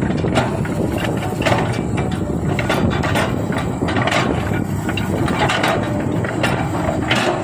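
Komatsu excavator working, its engine running steadily under load with repeated short scraping and knocking sounds from the machine's work.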